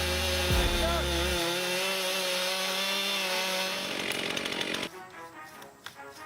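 Chainsaw running steadily at high revs, then stopping abruptly about five seconds in. Background music plays underneath.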